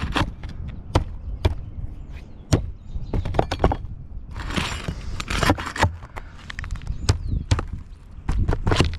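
Irregular knocks, taps and short scrapes of hard objects being handled, one to three sharp strikes a second with a couple of brief scraping stretches in the middle.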